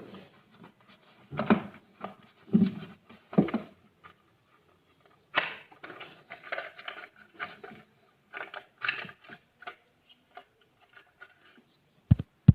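Earphone packaging being handled and opened: irregular rustling, crinkling and clicking, with three louder bursts early, a denser run of crackles in the middle and a sharp click near the end.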